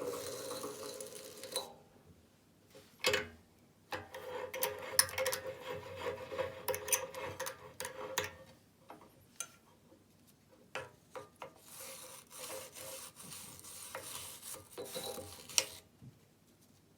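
A motor hum dies away in the first two seconds. Then comes irregular scraping and rubbing on metal, with sharp clicks and clinks, from hand work on a drilled aluminium bar.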